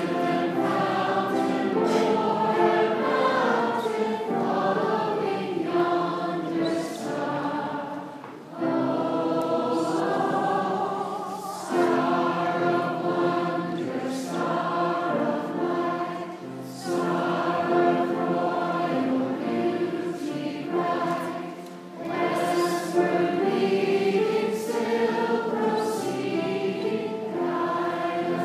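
A choir singing in long sustained phrases, with brief breaks about eight seconds in and again about twenty-one seconds in.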